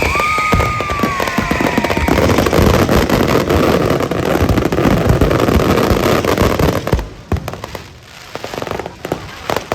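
Fireworks display: a dense run of bangs and crackling, with a high whistling tone in the first two seconds. It thins out to a few scattered pops about seven seconds in.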